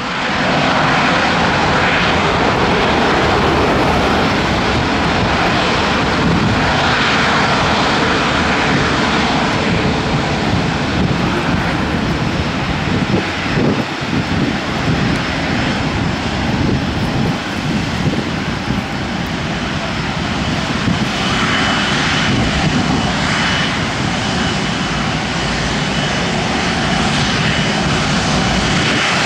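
Jet engines of an Airbus A330-343 airliner, Rolls-Royce Trent 700 turbofans, running with a steady rush as the aircraft taxis and turns on the runway. A faint high whine comes in during the last several seconds.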